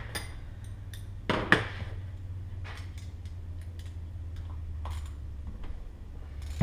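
Small metal engine parts and hand tools clinking and tapping against each other and the workbench during hand disassembly of a Honda XR70 engine, with the loudest clink about a second and a half in. A steady low hum runs underneath.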